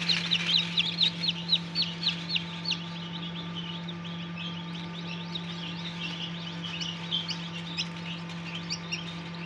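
Newly hatched chicks peeping: rapid, short falling cheeps, several a second, loudest in the first three seconds and fainter after. A steady low hum runs beneath them.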